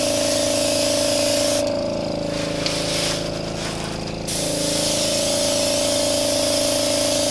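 Airbrush spraying a really light coat of paint, a steady hiss over a steady hum. The spray thins for a couple of seconds about a second and a half in, then comes back at full strength.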